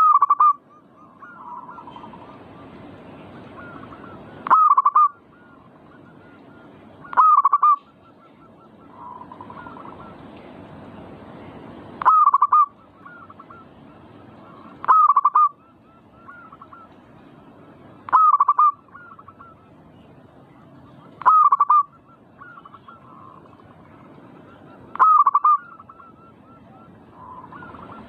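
Zebra dove (perkutut) cooing: a short call repeated eight times, about every three to four seconds, with a fainter dove calling in between, over steady background noise.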